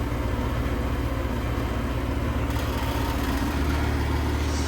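Outdoor unit of a 4-ton Carrier Comfort Series R-454B heat pump running in heat mode: its LG scroll compressor and condenser fan give a steady low hum. The low tone shifts about three and a half seconds in.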